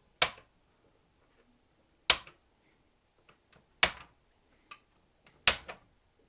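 Plastic clips on an Xbox 360 case releasing one after another as a screwdriver pries the side panel loose: four sharp clicks, about one every second and a half to two seconds, with fainter ticks between.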